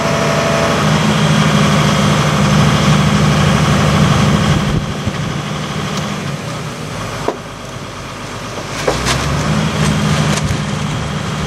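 An engine running steadily, easing off about five seconds in and picking back up near nine seconds, with a few sharp knocks late on.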